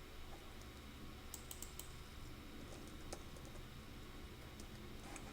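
Faint typing on a computer keyboard: short bursts of key clicks with pauses between them.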